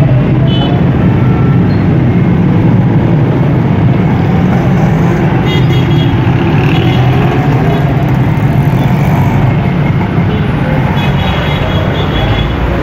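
Steady low rumble of road traffic, with a few faint horn toots.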